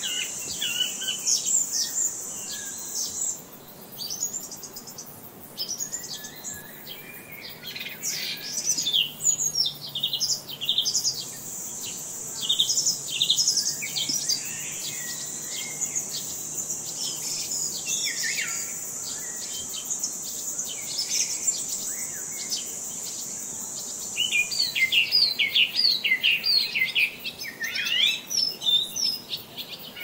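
Forest birdsong: many small birds chirping and trilling in quick overlapping calls, busiest near the end. Under them a steady, high-pitched insect drone stops about three seconds in, returns around eleven seconds and stops again around twenty-five seconds.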